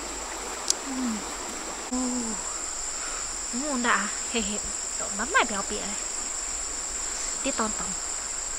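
Steady high-pitched drone of insects (crickets or cicadas) at the stream bank. Over it come several short calls that rise then fall in pitch, the loudest about four and five seconds in.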